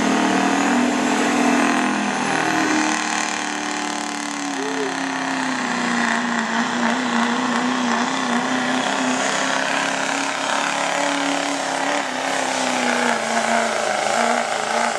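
Duramax 6.6-litre turbodiesel V8 in a pickup running hard at high revs under load as it drags a pulling sled, its pitch wavering as the truck bogs and recovers.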